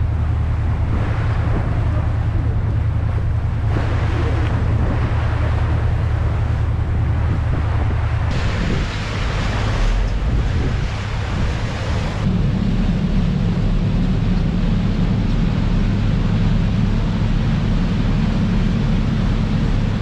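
Ship's engine droning steadily, with water rushing along the hull and wind buffeting the microphone. About twelve seconds in, the engine note shifts higher and stays there.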